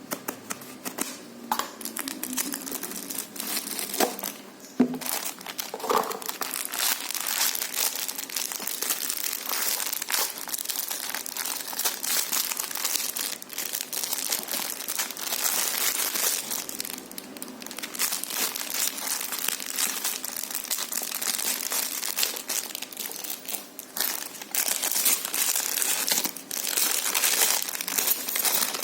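Parcel packaging being handled, crumpled and torn open: irregular crinkling and crackling with short sharp rustles throughout.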